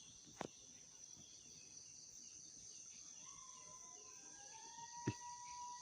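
Faint steady chirring of night insects, crickets among them. From about three seconds in, a long thin whining call holds a nearly steady pitch for about three seconds: the unidentified night creature's whimpering cry, which sounds like a plea for help and which the watchers liken to a chicken.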